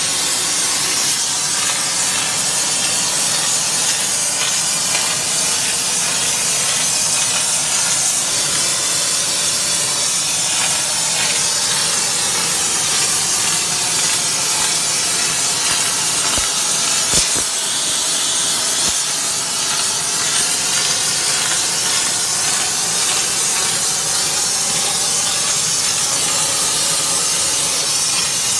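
Gas flaming torch of an automatic stone-flaming machine, hissing steadily as it flames the surface of a stone slab. One short knock partway through.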